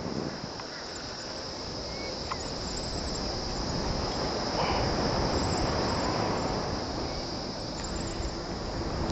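Wind rushing over the microphone of a descending paraglider, with a steady high-pitched drone underneath, like insects in the fields below.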